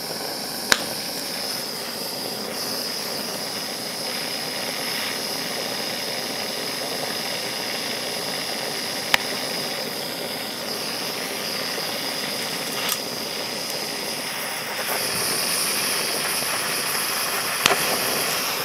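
Mini butane blowtorch hissing steadily with a high whistle as it heats a small pile of dried-out electrolytic capacitors, growing louder about fifteen seconds in. Four sharp cracks come from the burning capacitors, weak pops rather than bangs because the capacitors are dried out.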